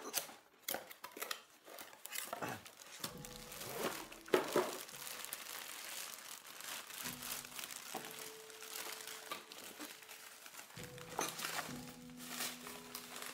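Packaging being handled: a cardboard box flap opened and a clear plastic bag crinkling and rustling as the item inside is pulled out and unwrapped, many short crackles with a louder burst about four seconds in.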